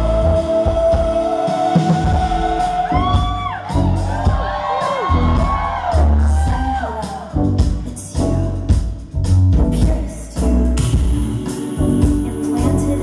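Live electropop band with a woman singing into a microphone: one long held note, then sliding vocal phrases over synthesizers. Heavy bass and drums drop out briefly near the start and come back in around the middle.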